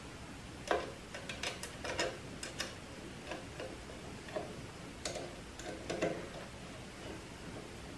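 Irregular light clicks and ticks of a long Phillips screwdriver turning the small screws on a bench grinder's spark-shield bracket, snugging them up.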